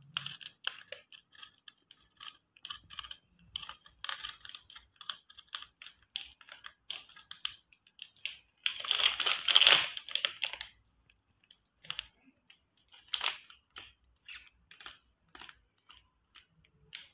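Cheddar cheese being grated on a green plastic hand grater: a long irregular run of short, quick rasping scrapes, with a longer, louder stretch about nine seconds in.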